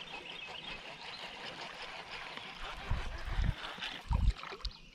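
Water trickling and splashing as a small bass is brought in beside a kayak, with a few dull thumps about three and four seconds in.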